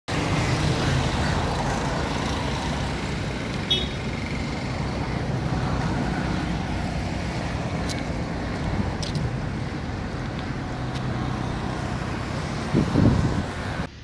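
Steady rumble and hiss of road traffic, with vehicle engines running, and a brief louder thump about a second before the end.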